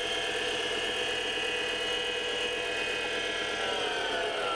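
7x16 mini lathe spindle and motor running steadily with a whining tone. Near the end it begins to fall in pitch as the spindle is switched off and spins down.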